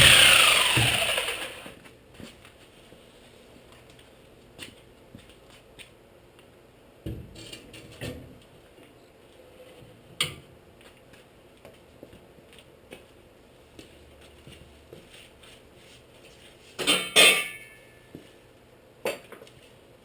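A power tool cuts off and spins down over the first two seconds, its pitch falling. After that come scattered light metallic clinks and knocks, with a louder clatter of metal about three-quarters of the way through and a single knock near the end.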